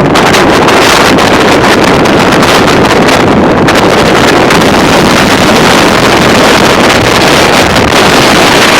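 Strong wind gusts buffeting the microphone: a loud, steady rush of wind noise with constant crackling buffets.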